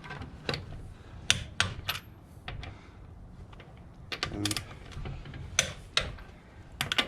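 Click-type torque wrench, set to 80 lb-ft, tightening car lug nuts: about ten irregular sharp metallic clicks, some in quick pairs. Among them is the wrench's release click, which signals that a lug nut has reached its set torque.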